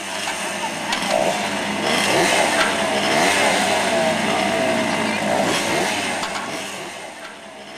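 Several small two-stroke minibike engines revving together, their pitches rising and falling against one another; the sound swells about a second in and eases off near the end.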